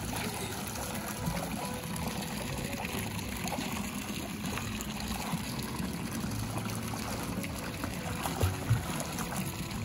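Steady rain falling, a dense hiss of drops, with background music playing over it. Two brief low thumps near the end.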